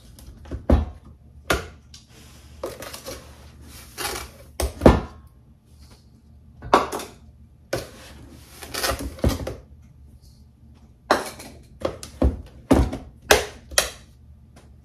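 Sugar being measured out: a measuring cup knocking and scraping in a plastic sugar canister and tipping sugar into a stainless steel mixing bowl. It is an irregular run of sharp clicks and knocks, with two short rushes of pouring sugar.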